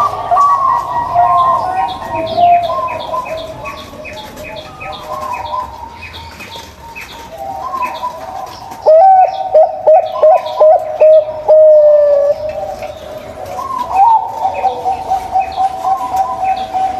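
Zebra doves (perkutut) cooing: overlapping low, rolling coos, with a loud run of quick repeated cooing notes about halfway through. A rhythmic high chirping runs behind them, strongest in the first half.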